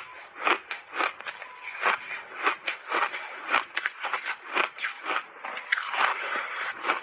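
A mouthful of ice being chewed close to the microphone: crisp crunches, about three a second.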